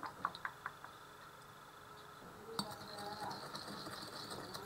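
Metal spoon stirring oil and powdered seasoning in a ceramic bowl: faint scraping with light clinks, starting a little over halfway in, after a few small ticks near the start.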